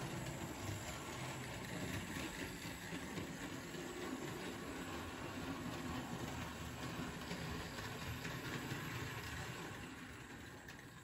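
Model railway 0-4-0 locomotive in CR livery running steadily around a test oval with three four-wheeled coaches in tow: the electric motor's hum and wheels running on the track, easing a little quieter near the end.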